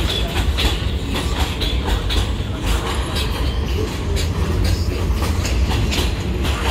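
New York City subway train rolling along an elevated track. It gives a steady low rumble, with wheels clacking irregularly over rail joints and brief wheel squeals.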